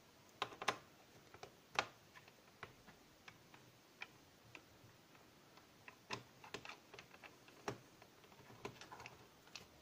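Faint, scattered clicks and ticks of a small screwdriver turning out the screws of a laptop's plastic bottom case, at irregular intervals. The loudest clicks come about two seconds in and again around six and eight seconds.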